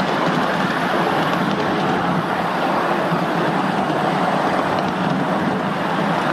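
Ride-on miniature railway train running steadily along its track, heard from one of the riding cars: an even rolling rumble of the wheels on the rails.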